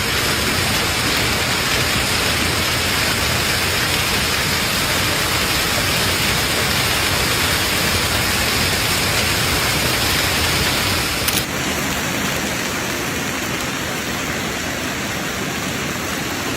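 Storm footage: a loud, dense, steady hiss of heavy falling precipitation during a severe storm. About eleven seconds in it changes abruptly to a slightly quieter downpour.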